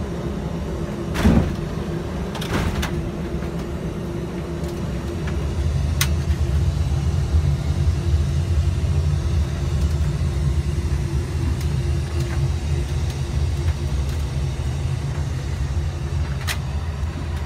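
Boeing 777-200 full-motion flight simulator touching down: a thump about a second in, then the low, steady rumble of the landing rollout, louder from about five seconds in, with a few faint clicks.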